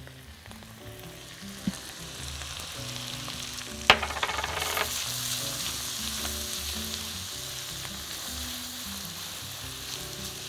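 Chopped onion and garlic, just seasoned with curry powder, salt and black pepper, sizzling in hot oil in a wok. The sizzle swells about two seconds in and is loudest in the middle, with a single sharp knock about four seconds in.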